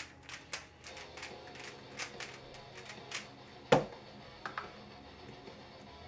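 Aolong V1 3x3 speedcube turning fast, its layers giving irregular sharp clicks, over faint background music. A single louder thump comes a little before the four-second mark.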